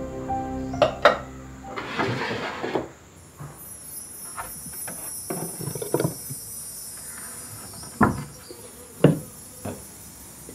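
Scattered light knocks and clinks of a clay pot and lid being handled and set down on a wooden table, the two loudest near the end, over a steady high chirring of insects.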